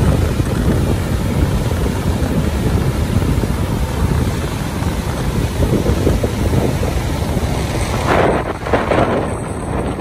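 Gullfoss waterfall roaring in a steady, dense rush of falling and churning water, with wind buffeting the microphone. A few brief louder gusts come near the end.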